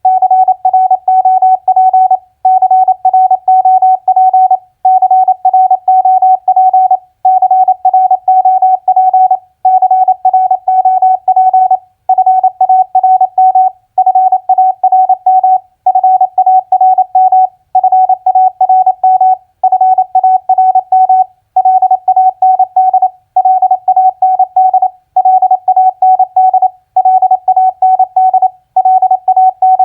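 Morse code sent as a single-pitch keyed tone at 28 words per minute: rapid dits and dahs spelling four-letter words, with a short pause after each word, about one word every two seconds.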